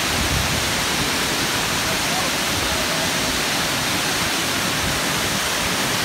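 Gooseberry Falls, a waterfall on a river, rushing steadily as white water pours over rock ledges into the pool below.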